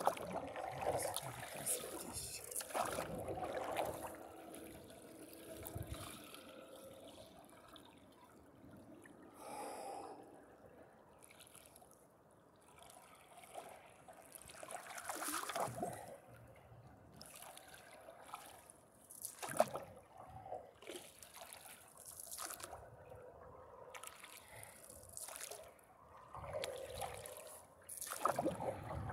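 Single-blade paddle stroking through lake water from a paddleboard: the blade splashing in and water trickling and dripping off it, in uneven strokes every few seconds, loudest near the start and near the end.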